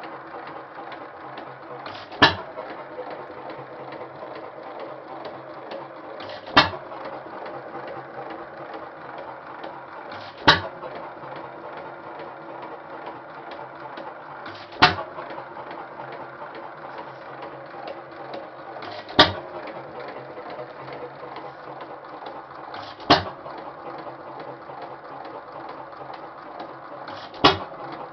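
1926 Hercules 3½ hp hit-and-miss engine running: a sharp pop from a firing stroke about every four seconds, seven in all, with a steady mechanical clatter as it coasts on its flywheels between firings.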